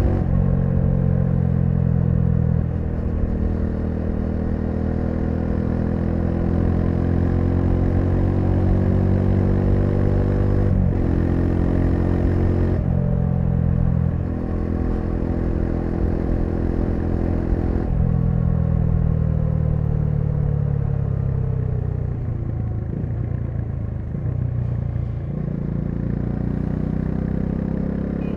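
Bajaj Dominar 400's single-cylinder engine running under way. Its pitch jumps at several points as the rider shifts gear, and it drops lower and quieter for the last few seconds as the bike slows.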